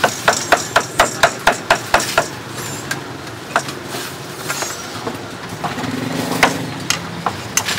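Meat cleaver chopping barbecued pork on a thick wooden chopping board: quick even chops, about five a second, for the first two seconds, then a few scattered knocks.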